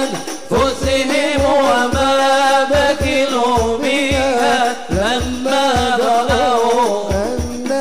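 Arabic qasidah devotional song: a voice sings a winding, ornamented melody over hand drums that beat a steady rhythm, about two strokes a second.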